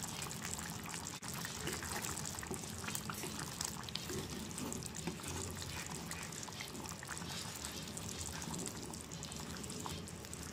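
Wooden spatula stirring a thick tamarind curry simmering in a clay pot: soft wet sloshing and bubbling with small scattered ticks.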